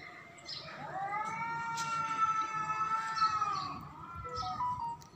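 Cat's long, drawn-out yowl, starting about a second in and held for nearly three seconds before falling away, followed by shorter wavering notes near the end. It is the threat yowl of a cat squared off face to face with another cat.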